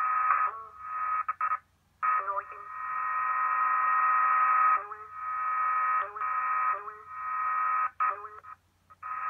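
Shortwave transmission of the German numbers station G06 received through a WebSDR: a narrow, distorted radio signal with steady whistling tones, chopped into short segments by two brief dropouts, about two seconds in and near the end.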